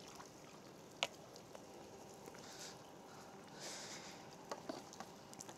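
Mostly quiet: water dripping and trickling from a landing net lifted out of the river, with a single sharp click about a second in, a couple of soft swishes, and a few faint ticks near the end.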